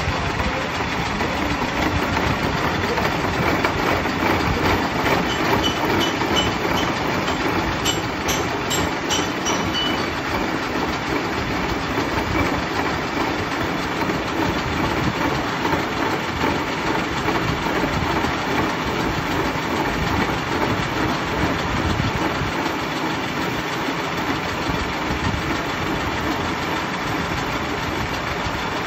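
Gear-cutting machine cutting the teeth of a metal spiral bevel gear: a spinning cutter on the spindle chips into the gear blank as it turns, giving a steady mechanical running noise.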